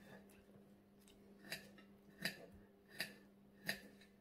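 Faint, short scrapes of kitchen utensils, four of them at an even pace about three-quarters of a second apart, over a steady low hum.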